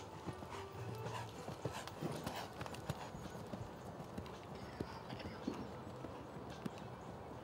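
Horse's hooves striking the sand arena footing at the walk: an irregular series of hoofbeats.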